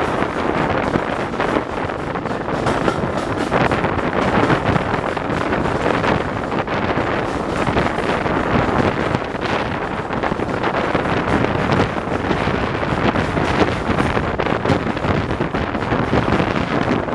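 Wind buffeting the microphone held out of a moving train's carriage window, over the steady rumble of the coaches running along the track. The locomotive's exhaust is drowned out by the wind.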